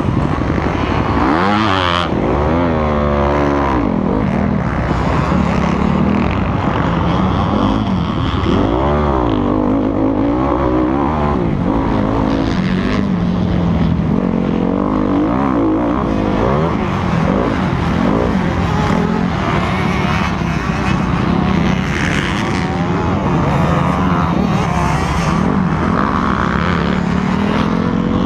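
Honda motocross bike's engine revving up and down over and over as it is ridden hard around a dirt track, heard close up from a helmet camera.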